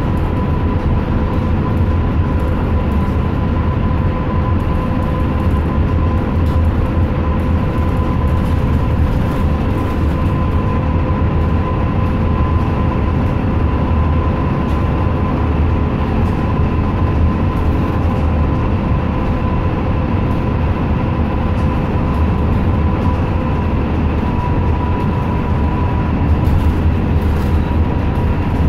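Steady engine and road rumble inside a moving transit bus, with a thin steady whine running through it.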